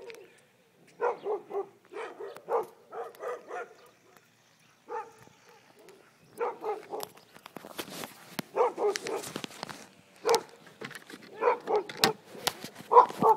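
A dog barking in runs of three to five barks with short pauses between them, and a few sharp knocks in the second half.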